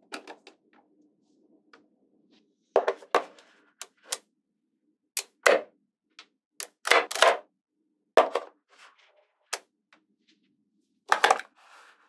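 Small magnetic balls clicking and clacking as pieces are snapped onto a magnetic-ball model: sharp clicks, singly and in quick pairs or short clusters, every second or so.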